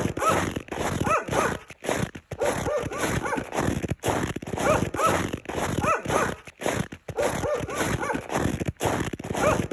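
Footsteps in snow, walking at a steady pace of about one step a second, each step a crunch with a squeaky creak as the packed snow compresses underfoot.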